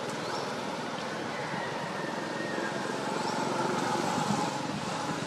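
Steady outdoor background noise with the faint, continuous drone of distant engine traffic.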